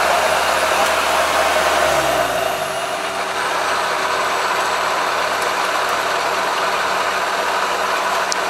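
Vehicle engines running while driving slowly behind a combine harvester on a farm road. An engine note drops in pitch about two seconds in, then runs steadily.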